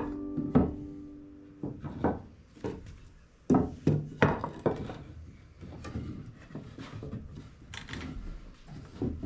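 Pieces of wood being handled and knocked together: a series of sharp wooden knocks and clatters, the loudest in the first five seconds, then lighter ones. The tail of an acoustic guitar tune fades out at the very start.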